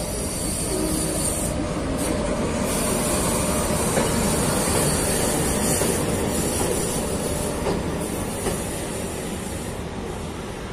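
EP1M electric locomotive running light past at low speed: a steady rumble of wheels on the rails, growing louder as it passes close and then fading as it moves off, with a couple of light wheel clicks.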